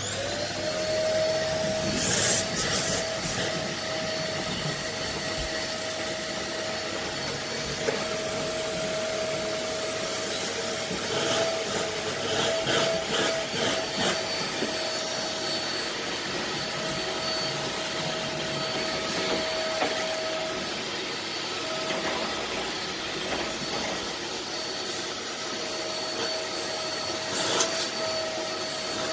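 Vacuum cleaner switched on, its motor spinning up and then running with a steady whine. Scraping and a few knocks come as the nozzle is worked over the floor.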